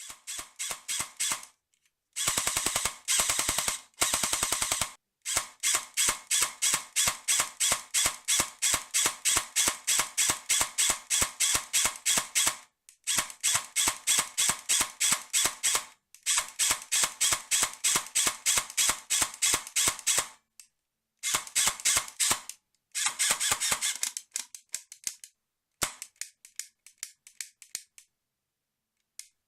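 Colt M4A1 airsoft electric gun (AEG) firing: dense full-auto bursts about two seconds in, then long runs of rapid single shots, about five a second, broken by short pauses, with a few isolated shots near the end. The gun has an intermittent fault in single-shot mode, where the trigger just clicks and doesn't fire.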